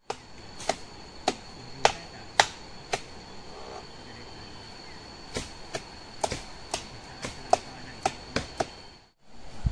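Sharp strikes, about two a second, from a man hacking or knocking at the trunk of a sugar palm as he climbs it, with a pause of about two seconds midway. A steady high insect drone runs underneath.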